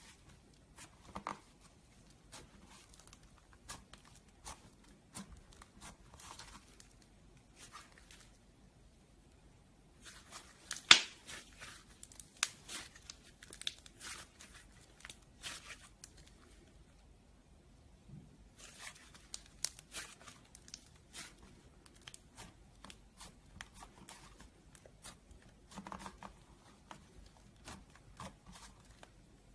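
Slime being squeezed and stretched by hand, giving irregular sharp crackling clicks and pops. Two brief pauses, with one loud snap about eleven seconds in.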